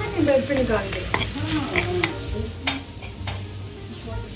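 Leftover food sizzling as it is reheated on the stove, with a few sharp clinks of a utensil against the pan. A voice speaks briefly in the first two seconds or so.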